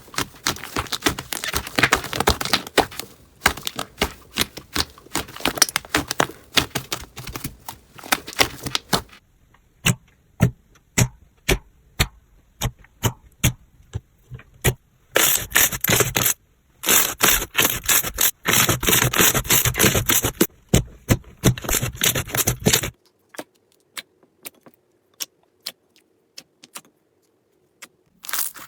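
Crunchy slime being worked by hand, giving a dense run of crackling, popping clicks. The clicks thin out to scattered single pops, then come thick again. The last few seconds are almost silent.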